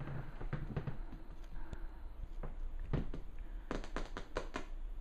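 Ice-hard snowballs matted on a dog's legs clicking and tapping against the vinyl kitchen floor and each other as it steps, in scattered knocks, then a quick run of about six clicks just before the end.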